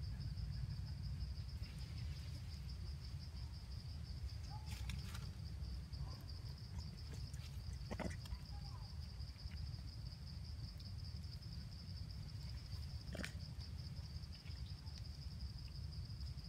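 A steady, high, pulsing insect trill runs without a break over a low rumble. A few short snaps and faint squeaks sound about 5, 8 and 13 seconds in.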